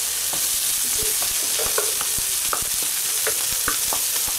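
Diced onions, pickled gherkins and beetroot sizzling in hot oil in a frying pan, a steady hiss with many small pops and crackles as the beetroot is tipped in.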